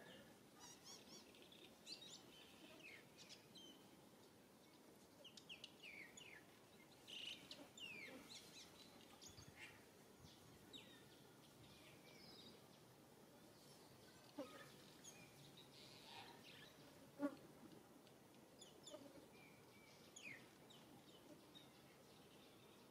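Faint, scattered chirps of small birds, each a quick downward sweep, against a very quiet background, with a brief low knock about three-quarters of the way through.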